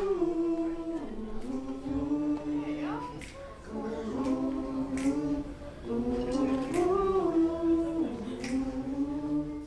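Voices singing a slow melody in harmony, holding long notes that slide between pitches in phrases a couple of seconds long, over quiet band backing with soft percussion taps every second or two.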